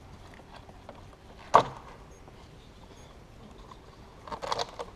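Hands working the rubber intake hose and its clamp loose on an engine that is off. There is one sharp click about a second and a half in, then a short run of rustling knocks near the end as the hose is handled.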